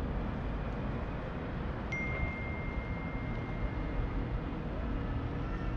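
Steady low rumbling background noise, with a single high chime-like tone struck about two seconds in that rings on for several seconds, slowly fading.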